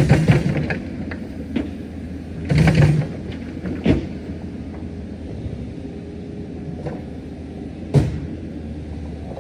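Earthmoving machine's engine running steadily, with loud clanks and knocks over it: clatter at the start and again about two and a half seconds in, a knock at about four seconds, and a sharp bang near the end.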